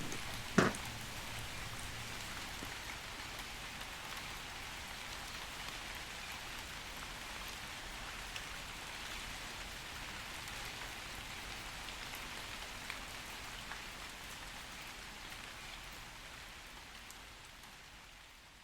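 Steady, gentle rain, with one sharp click about half a second in. The rain slowly fades out near the end.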